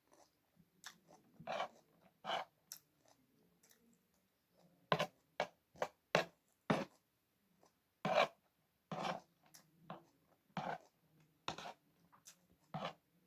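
Close-up chewing of food in a mukbang: irregular crunchy bites, about one a second, with quieter mouth sounds between them.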